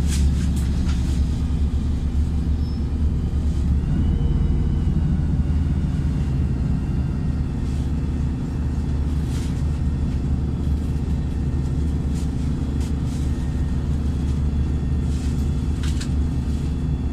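Cabin sound of a LiAZ 5292.67 city bus: the low, steady drone of its YaMZ-53624 natural-gas engine, with a few light rattle-like clicks.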